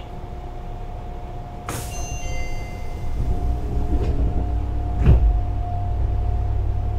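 Inside a Fukuoka City Subway 1000N series train car: a steady hum of the car's equipment, a sharp knock with a brief ringing about two seconds in, then the sliding doors closing with a heavy thump about five seconds in.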